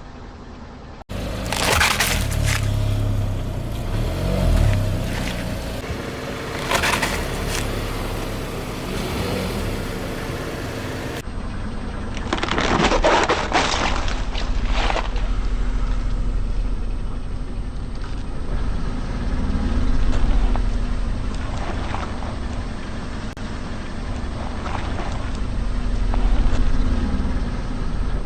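Car tyres rolling slowly over objects and crushing them: several bursts of crunching and cracking over the low, steady running of the car, the longest and loudest about halfway through.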